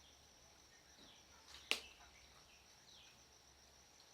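Faint natural ambience: a steady high insect drone with a few faint, short falling bird notes. One sharp click a little under halfway in is the loudest sound.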